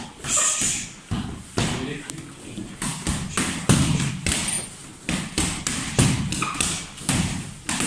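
Boxing gloves striking focus mitts, a series of sharp slaps in quick clusters of two or three as punch combinations land, from two pairs hitting at once.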